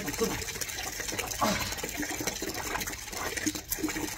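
Hands scrubbing lather into a wet rottweiler's soapy fur: a rapid, continuous wet rubbing.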